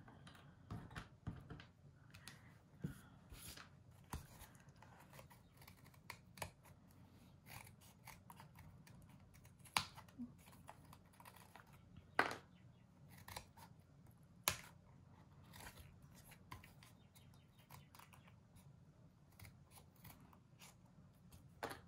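Small craft scissors snipping die-cut words out of a brown card sheet: faint, irregular short snips, with a few sharper cuts standing out midway and once more near the end.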